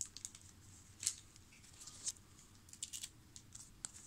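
Faint clicks and swishes of a stack of Topps Bazooka football cards being slid and flipped through one at a time, a handful of short strokes irregularly spaced.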